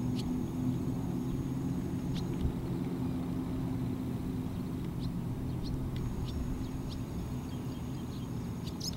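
Steady low drone of a distant engine, with a few short, high bird chirps scattered through it.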